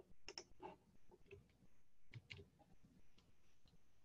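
Faint, scattered clicks of a computer mouse and keyboard, a few at a time, over near silence.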